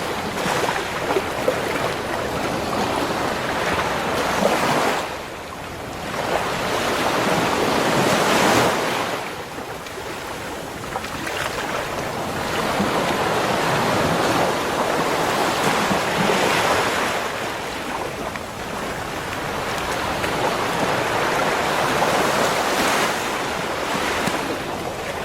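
Ocean surf breaking and washing up a beach, a steady rushing hiss that swells and ebbs as each wave comes in and draws back.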